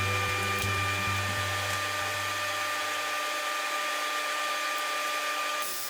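Woodworking machine motor running with a steady whine, its low hum fading away within the first three seconds as it winds down; sharp noisy hits begin near the end.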